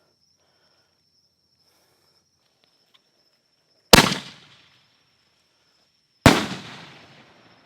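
Two sharp booms from aerial fireworks canister shells, one about four seconds in and another about two and a half seconds later, each ringing out and fading. Crickets chirr steadily behind them.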